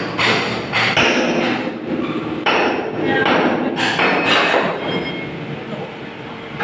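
Repeated hammer blows on the steel of a backhoe bucket during repair, struck at an irregular pace and thinning out near the end.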